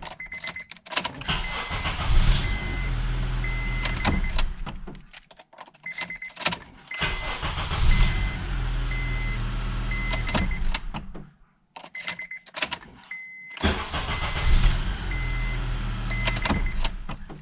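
Honda Accord engine started three times in a row, each time catching at once after a short crank, running briefly, then switched off. Every start is clean: the ignition switch fault is cured by a new switch actuator. A short electronic chime from the car beeps repeatedly over the running engine.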